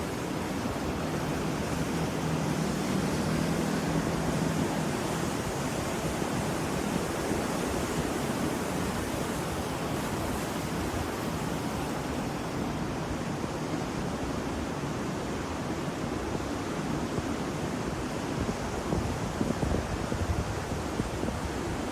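Ocean waves and surf, a steady wash of noise that swells slightly a few seconds in and again near the end.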